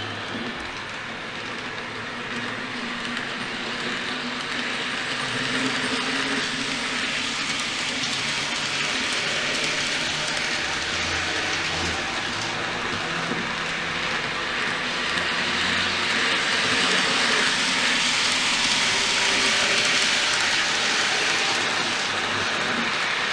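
N gauge Class 321 model electric multiple unit running at speed, its DCC sound decoder playing AC electric traction motor sounds through its small speaker over the rush of its wheels on the track. The sound grows gradually louder.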